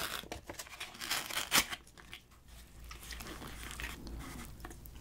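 Chopsticks stirring noodles and dumplings in an instant ramen cup, with sharp clicks and scrapes against the cup in the first two seconds, the loudest about a second and a half in, then a softer rustle of the noodles being stirred.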